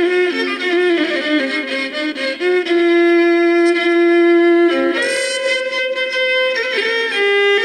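Electric violin played with the bow: a slow melody with slides between notes, then a long held note, and a new, higher phrase starting just under five seconds in.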